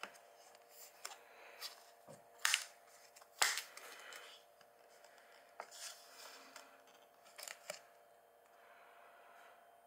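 Clear plastic lid being pried off a paper takeout soup cup: a series of sharp plastic crackles and snaps, the loudest about two and a half and three and a half seconds in, with smaller clicks around them.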